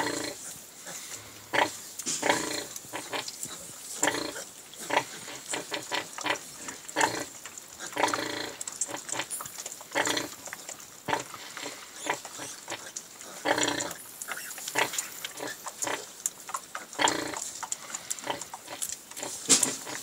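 A nursing sow and her suckling piglets grunting, in short irregular sounds that come throughout, with a few longer, louder ones about eight, thirteen and seventeen seconds in.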